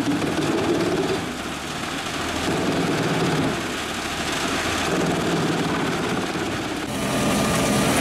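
Large drum wood chipper running under load as logs are fed against its toothed drum. The engine pitch rises at first, then the sound swells and dips as the wood is taken in. About seven seconds in it changes abruptly to a steadier, even engine running.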